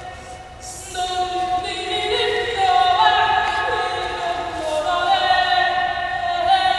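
Choral a cappella singing: several voices holding long, slowly shifting notes together. It is quieter for the first second, then swells.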